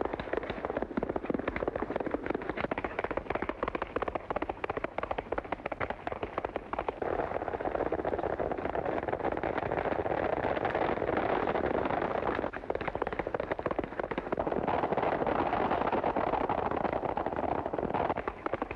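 Hooves of several horses galloping on a dirt trail, a dense rapid clatter that grows louder about seven seconds in.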